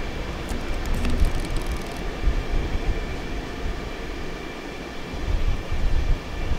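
New York City subway train approaching slowly along an open-cut line: a steady low rumble with a faint steady whine above it, and a brief run of faint high ticks about a second in.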